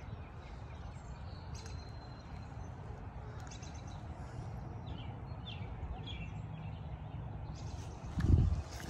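Small birds chirping in short, falling calls over a steady low outdoor rumble. A brief loud low thump comes near the end.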